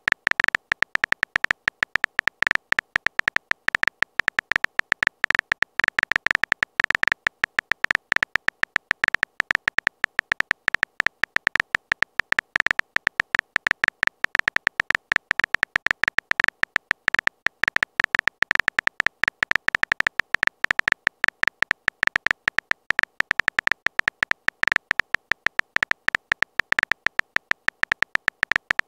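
Typing sound effect of a texting-story animation: a rapid, irregular string of short high-pitched beeps, one for each letter typed into the message box.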